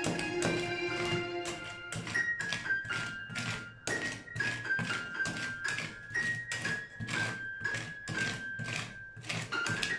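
Background music with held tones over a quick, uneven run of knocks and taps, about three a second: metal spatulas striking and scraping frozen ice cream on the steel cold plate of a rolled-ice-cream pan.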